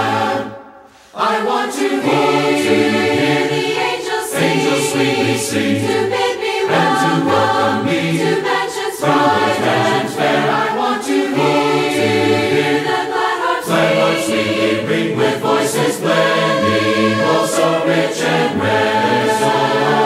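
Background music: a choir singing in harmony, breaking off briefly about a second in and then carrying on.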